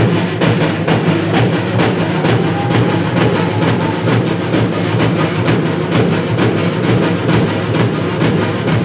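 Live folk drumming beating a steady, fast rhythm with other instruments, the music that accompanies a Soma Kunitha dance.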